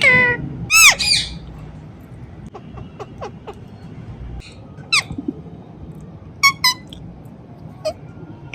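Indian ringneck parrot squawking: two loud, high, swooping calls in the first second and a half, then short sharp calls about five seconds in, a quick pair around six and a half seconds, and one more near the end.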